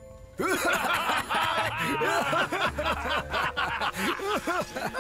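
Several men chuckling and snickering at once in mocking laughter, starting about half a second in.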